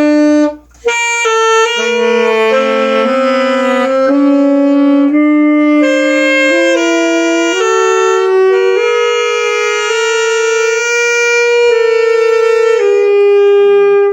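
Saxophone playing a slow melody of long held notes, one line at a time, with a brief breath pause a little under a second in.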